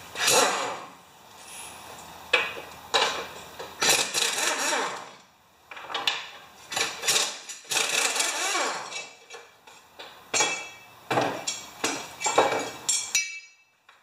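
Irregular clanks and knocks of metal tools and parts being handled at the underside of a lawn mower's deck, with short ringing after some strikes.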